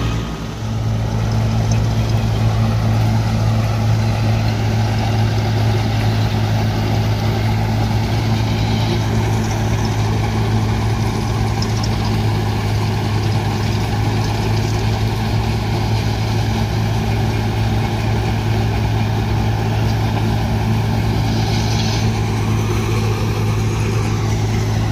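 Steady drone of a John Deere tractor engine running at constant speed under load, driving a Punni back-to-back multi-crop thresher, with the thresher's whirring mixed in.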